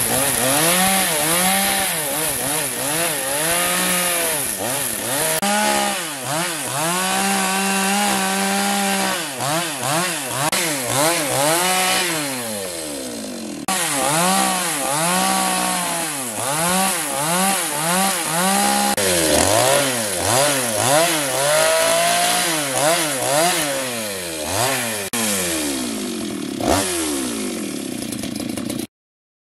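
Petrol chainsaw cutting into a wooden log, its engine revving up and dropping back again and again. It cuts off suddenly near the end.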